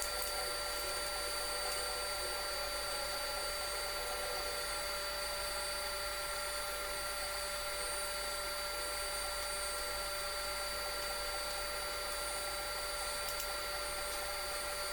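Table saw running steadily with a constant whine.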